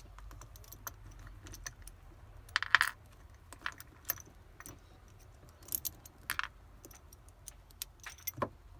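Scattered metallic clicks and clinks of battery cable terminals, nuts and hand tools being handled as the cables are disconnected, with a short clatter about three seconds in and a few more near the end.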